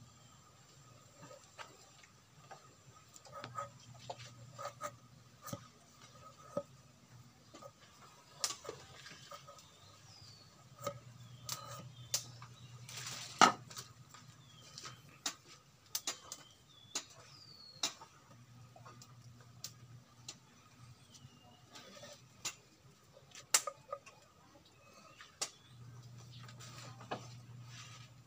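Irregular light clicks and knocks of green bamboo pieces being handled and set down on a wooden block, with one louder knock about halfway through. Faint high bird chirps now and then.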